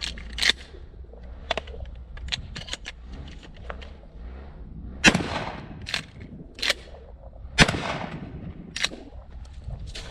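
Two blasts from a Remington 870 pump-action 12-gauge shotgun, about two and a half seconds apart, each ringing out afterwards. Between them come several short, sharp clacks, including two close together after the first blast, fitting the pump being racked.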